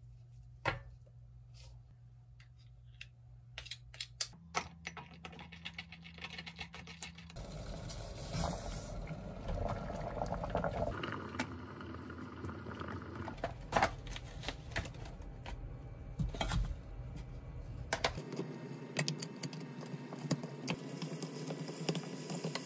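Kitchen cooking sounds: a spoon clinking and tapping against a small glass bowl while mixing a sauce, then dry noodles going into a pot of boiling water, then slices of pork sizzling in a frying pan as they are turned with tongs.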